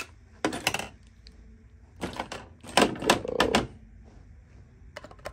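Plastic clicking and clattering as the battery compartment of a pistol-grip RC transmitter is opened and AA batteries are handled, in several short bursts with the busiest about three seconds in.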